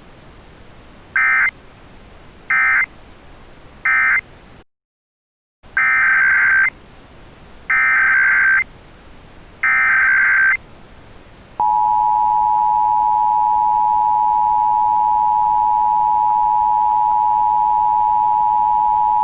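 Emergency Alert System digital tones: three short SAME data bursts (the end-of-message code), a brief dropout, then three longer SAME header bursts. About twelve seconds in, the steady two-tone EAS attention signal (853 and 960 Hz together) begins and holds, announcing a new alert.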